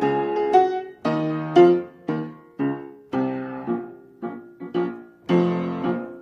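Piano playing a slow run of chords and notes, about two a second, each struck and left to die away.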